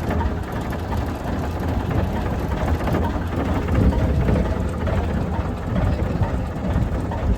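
Excavator engine running steadily at a low, even pitch.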